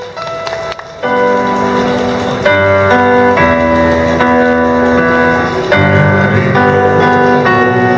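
Electronic keyboard playing slow, held chords as the introduction to a song for male vocal group. The chords come in about a second in and change every second or two.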